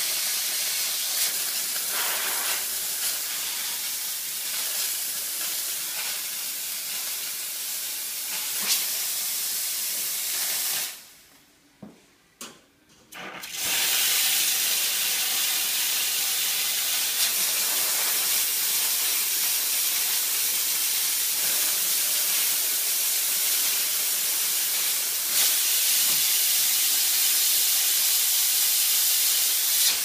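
Steam wands of a Wega Atlas two-group espresso machine blowing off steam with a steady hiss. About a third of the way in the hiss cuts off for about two seconds, with a couple of clicks, then comes back as strong as before.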